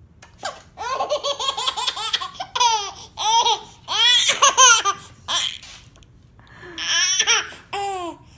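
A baby laughing in high-pitched, pulsing bursts. There is a long run of laughter, a pause of about a second, then another burst of laughter near the end.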